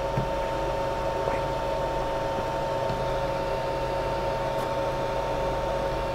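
Steady machine hum and whir with a constant high whine, a running fan, with a light click just after the start.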